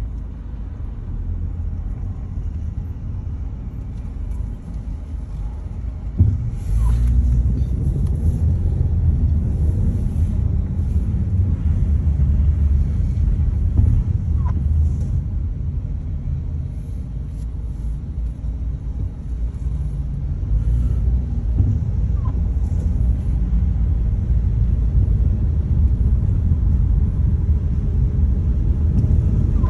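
Steady low rumble of a car on the move, growing louder about six seconds in.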